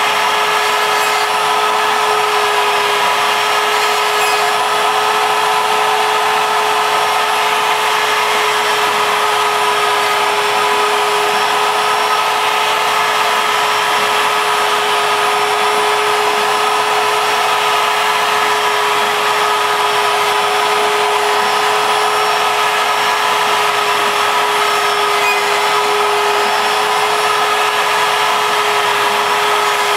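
Router spindle on a ShapeOko CNC mill running at speed and cutting MDF, a steady high whine that holds its pitch throughout, over the hiss of the vacuum pulling sawdust through the dust shoe.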